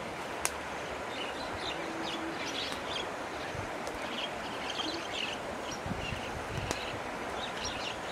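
Outdoor ambience: a steady hiss with short bird chirps scattered throughout, and one sharp click about half a second in.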